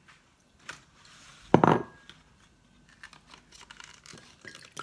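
Food packaging handled: one short, loud tearing sound about one and a half seconds in, with a few faint clicks before it and light crinkling afterwards.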